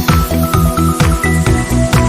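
Upbeat electronic background music with a steady drum beat, about four hits a second, over a bass line and held synth notes.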